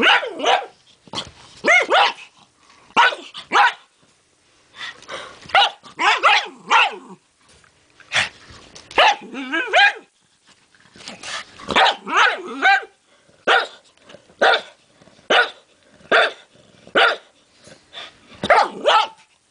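Pug barking repeatedly at a knitted hat on the floor, in short runs of two or three barks with brief pauses between them: defensive barking at an object it is wary of.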